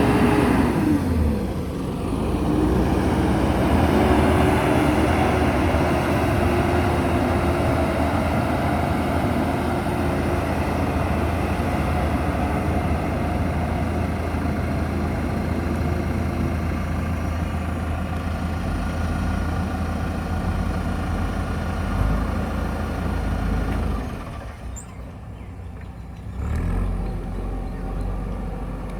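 Diesel engine of a JCB backhoe loader running under load. Its revs fall about a second in, it then runs steadily, goes quieter for a couple of seconds near the end and picks up again.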